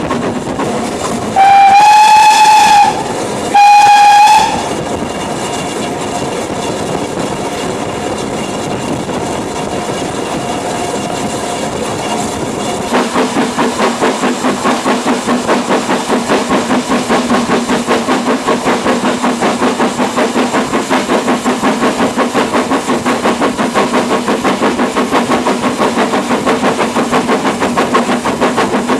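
Steam locomotive whistle sounding two loud blasts, the first about a second and a half long and the second shorter, over the running noise of the moving train. About thirteen seconds in, a fast, regular beat sets in and keeps going: the locomotive's exhaust as it works harder.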